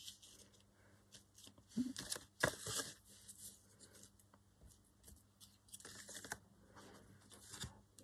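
Paper scraps rustling and crinkling as they are handled and picked through, in short scattered bursts, the loudest about two to three seconds in.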